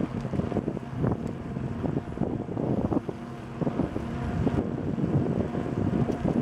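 Wind buffeting the microphone of a camera riding on a moving bicycle, an uneven rumble with the low rolling noise of the ride along paved trail underneath.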